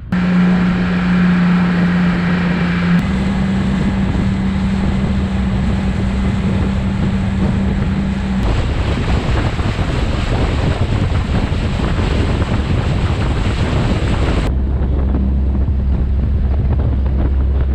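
Motorboat running across open water: a steady engine hum under heavy wind buffeting on the microphone and rushing water. The sound changes abruptly three times, the hum dropping lower in pitch for the last few seconds.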